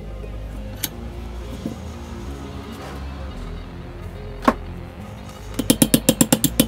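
Background music with a steady low drone, with a few single sharp knocks and, near the end, a quick run of about ten knocks at roughly eight a second.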